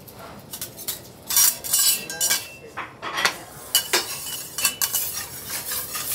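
Metal spatula and utensils clinking and scraping on a steel teppanyaki griddle: a string of sharp clinks, some ringing briefly.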